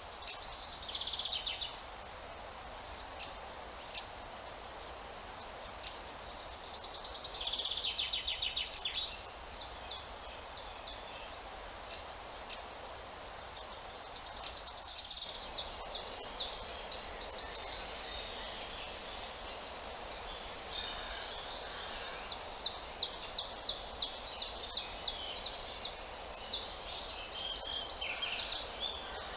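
Several woodland songbirds singing over a steady background noise: overlapping high trills and chirps, with a long run of quick repeated notes near the end.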